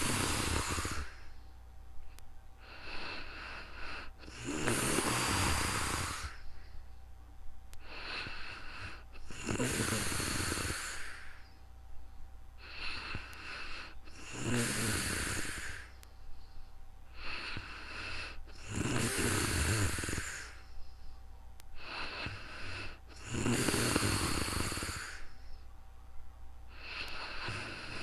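A sleeping person snoring: a loud, rasping snore about every five seconds, with a softer breath between each.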